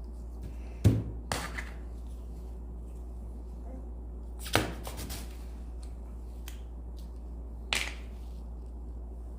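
Slime being pressed and poked, giving a few short, sharp squelching pops and clicks: the loudest about a second in, a cluster about four and a half seconds in and another near eight seconds, over a steady low hum.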